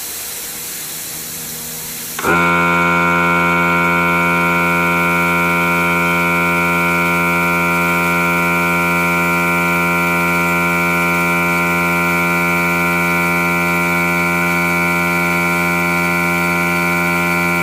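Compressed air hissing steadily out of an ANI spray gun with its trigger held open. About two seconds in, the Dynatec 3 hp air compressor's motor and pump cut in and run on with a steady, loud hum under the continuing hiss.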